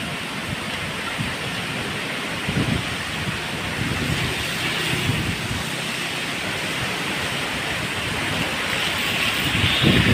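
Strong storm wind rushing through tree branches and leaves, with gusts buffeting the microphone. A stronger gust builds near the end.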